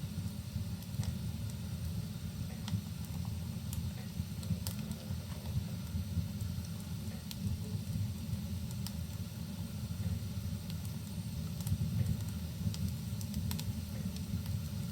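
Wood fire crackling in a fireplace, with scattered sharp pops and snaps, over a steady low rush of rain.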